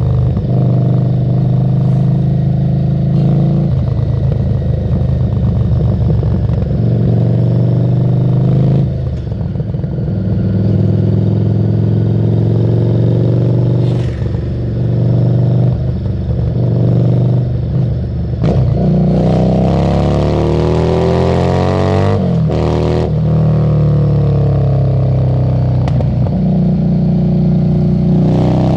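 Harley-Davidson Street 750's V-twin engine through a Screamin' Eagle exhaust, under way and accelerating. The pitch climbs and drops back several times, with short breaks at the shifts, and rises most steeply in the second half.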